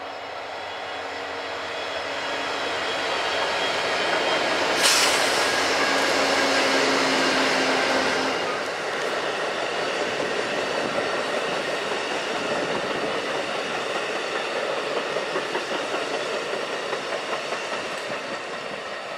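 Union Pacific SD70M diesel locomotive leading the Amtrak California Zephyr past at speed: the engine's drone builds and passes over the first eight seconds, with a brief sharp crack about five seconds in. The passenger cars then roll by with a steady rumble and rhythmic wheel clicks over the rail joints.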